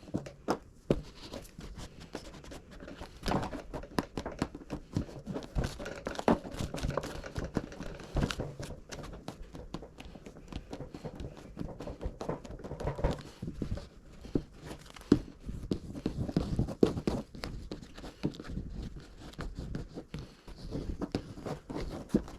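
Plastic sheeting crinkling and rustling as it is handled and laid over the work to mask it, with irregular sharp clicks and taps throughout.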